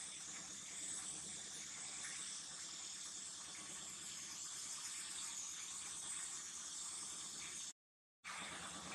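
Faint, steady high-pitched hiss of outdoor background ambience, wavering slowly, which cuts out completely for about half a second near the end.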